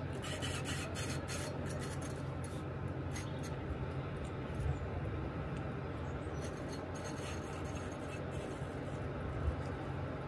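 Steady low rumble of river water running below a dam. A run of light ticks sounds in the first three seconds.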